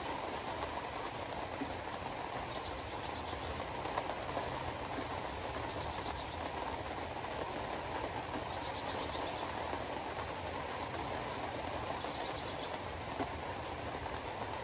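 Steady road noise heard from inside a car driving on a wet road: tyre hiss on wet asphalt and cabin rumble, with a few faint ticks.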